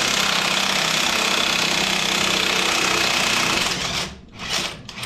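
Parkside cordless impact wrench hammering steadily for nearly four seconds as it undoes a bolt, then stopping. Two short scraping sounds follow near the end.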